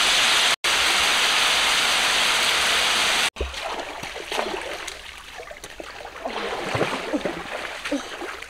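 Catfish pieces sizzling loudly in hot oil in a wok, a steady hiss broken by a brief dropout and cut off suddenly about three seconds in. A much quieter stretch follows, with river water and short faint sounds.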